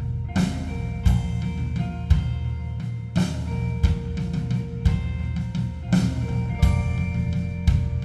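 Live band playing an instrumental passage: a drum kit with bass drum and snare, loud accented hits about once a second, over a bass line and held higher notes.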